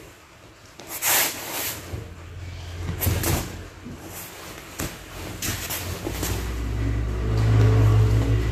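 A low engine rumble builds from about six seconds in and is loudest near the end, with a few short rustling scuffs before it.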